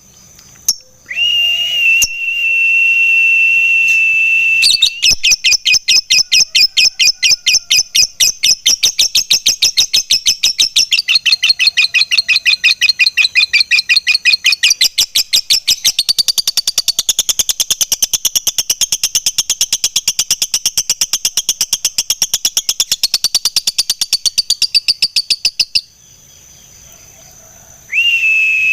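Lovebird ngekek: a long, rapid chattering trill of shrill, evenly repeated notes running for about twenty seconds without a break. It is framed by a steady, high whistle-like tone, one at the start and one again near the end.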